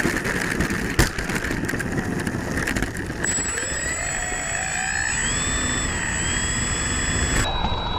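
Twin electric motors and propellers of a Hobby King DC-3 RC model plane whining, their pitch gliding up and down, as the plane rolls fast along a cracked runway. The landing gear clatters over the cracks, with a sharp knock about a second in.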